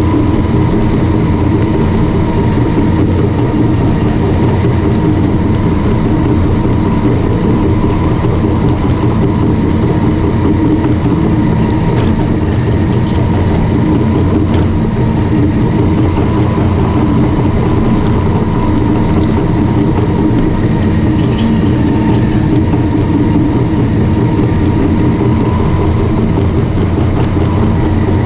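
Caterpillar D5 bulldozer running steadily: a constant loud mechanical din from the machine, with a thin steady whine above it.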